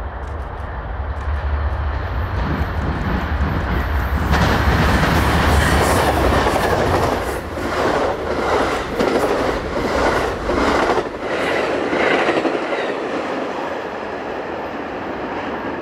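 Amtrak Southwest Chief passing at speed behind two GE P42DC Genesis diesel locomotives. The deep engine rumble builds, and the train goes by loudest about five seconds in. The bilevel Superliner cars' wheels then clatter over rail joints in a quick run of clicks, and the low rumble fades out about eleven seconds in.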